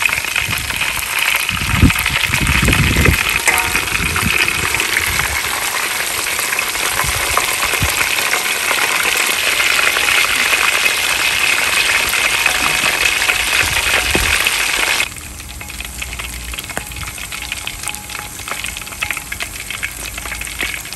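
A whole coiled pike conger deep-frying in hot oil in a steel wok: a dense, steady sizzle that drops abruptly to a quieter sizzle about fifteen seconds in. A few low knocks come in the first seconds.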